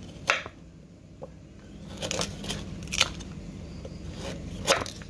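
Knife slicing a galangal rhizome into rounds: about four crisp cuts, roughly a second apart.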